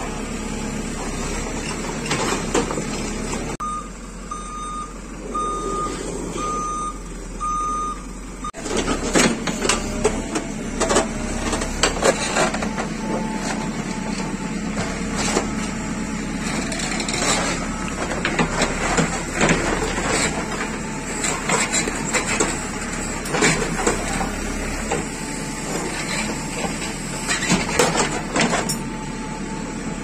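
JCB 3CX backhoe's diesel engine running under load while the steel bucket scrapes and knocks through rocky soil, with stones and concrete clattering and grinding against it. From about four to eight seconds in, a warning beeper sounds about once a second.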